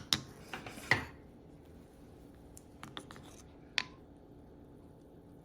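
Chopsticks clicking and knocking against tumbled stones as they are picked out of a rock tumbler barrel: a few sharp clicks in the first second, then a few fainter taps around three to four seconds in.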